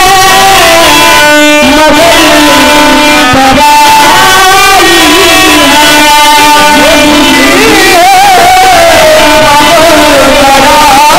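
Loud live devotional folk music: a dholak drum keeping time under a melodic line, with a voice singing through the troupe's microphones and loudspeakers.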